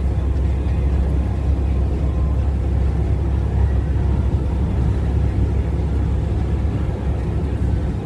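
Steady low rumble of a semi truck's engine and tyre noise heard from inside the cab while cruising on the highway.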